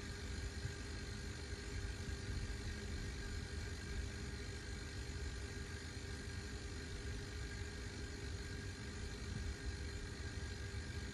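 Salvaged refrigerator compressor running as a vacuum pump: a steady hum with a low rumble, drawing down a DIY vacuum chamber.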